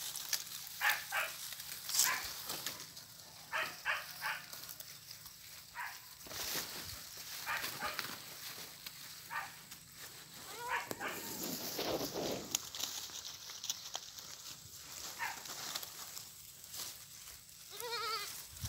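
Goats bleating among the crackle and rustle of dry cornstalks being pulled and chewed. The calls are short, and a longer wavering bleat comes near the end.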